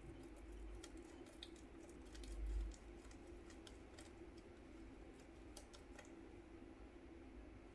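Faint, scattered light clicks and taps from kitchen utensils being handled, with a soft low thump about two and a half seconds in.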